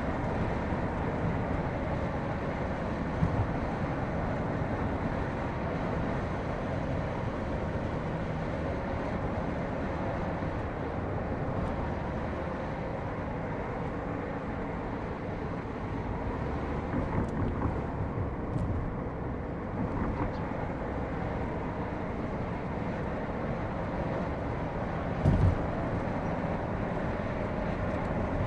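Car driving along, with a steady low rumble of tyre and engine noise. A brief low thump comes about three seconds in, and a stronger one near the end, as over bumps in the road.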